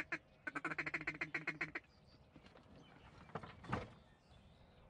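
Duck call blown in a fast, even chatter of quacks, about eight to ten a second, in two strings, a duck-hunting feed call, followed by a few louder single notes about three and a half seconds in.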